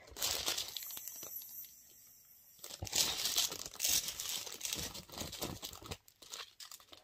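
Small clear plastic sachets of diamond-painting drills crinkling as they are handled and sorted. The rustling comes in two spells, the second louder, and stops about six seconds in.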